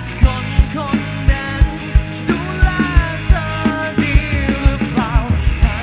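Live band playing a pop-rock song: a steady drum beat and bass under a lead melody line that bends and wavers.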